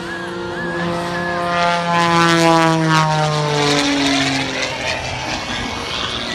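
Extra 330SC aerobatic plane's six-cylinder Lycoming engine and propeller passing by, the drone sliding steadily down in pitch as it goes past and loudest midway.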